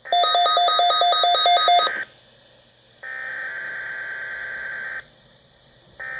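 Weather radio SAME digital header bursts: a harsh, raspy two-tone data screech. The first burst lasts about two seconds with a shrill beep pulsing over it about four times a second, a second burst runs from about three to five seconds in, and a short one comes near the end.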